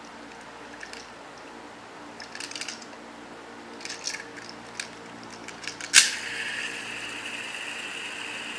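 Red plastic rotating and sliding tower fidget spinner being handled: its layers and beads click and rattle in short runs, then about six seconds in a sharp click is followed by a steady whirr as it is set spinning.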